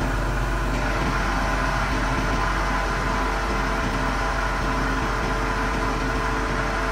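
Grove TM1500 hydraulic truck crane's diesel engine running steadily, driving the hydraulics as an outrigger beam extends out from the carrier.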